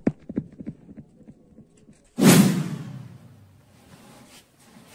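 Firecrackers going off: a few scattered pops dying away, then one loud bang about two seconds in that fades over a second or so.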